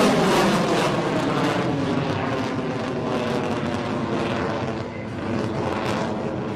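Jet noise from an F-22 Raptor's twin Pratt & Whitney F119 turbofan engines as the fighter climbs away. The noise is loudest at the start, with a falling pitch, then slowly fades.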